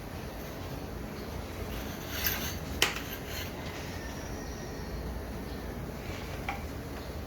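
Hard small parts being handled during pipe fitting work: a brief scrape, then one sharp click about three seconds in and a softer click near the end, over a steady low background rumble.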